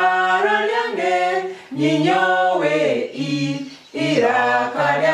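A small group of adults singing unaccompanied, a Runyoro-Rutoro letter-sound song sung in three held phrases with brief breaks between them.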